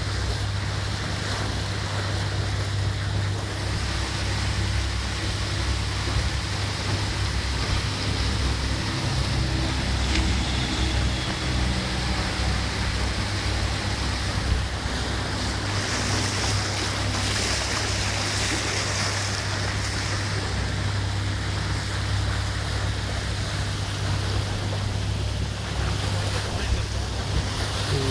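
Boat under way: a steady low engine drone under the rush of water and wind buffeting the microphone.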